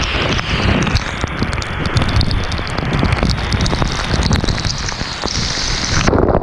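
Waterfall: a loud, steady rush of falling water, its high hiss dropping away just before the end.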